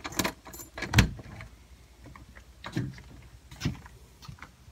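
A door being unlocked and opened: metallic clicks from the key and latch, a sharp thump about a second in, then a few softer knocks and thumps.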